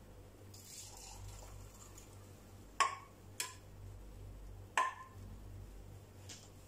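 Three sharp clinks of kitchenware, a utensil or cup knocking against crockery, each with a short ringing tail, over a faint low steady hum.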